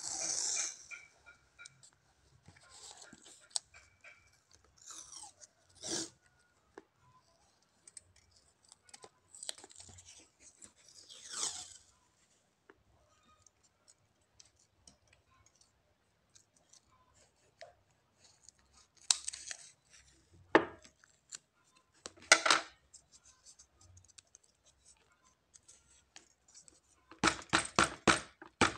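Masking tape peeled off its roll in short rips and torn, with rustling and clicking as plastic paint markers are handled; a quick run of clicks comes near the end.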